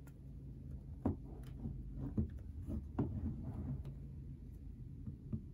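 Light handling noise: fingers shifting grip on a cardboard AirPods Pro box as it is turned in the hand, a run of soft taps and rubs over a low steady room hum.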